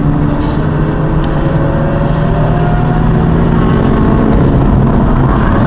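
BMW M4's twin-turbo straight-six heard from inside the cabin, running hard on track with its pitch slowly climbing as it accelerates, over steady tyre and road noise.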